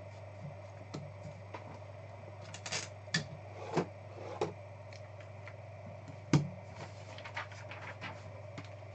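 Scattered light clicks and taps from trading cards and plastic card holders being handled on a table, over a steady low hum.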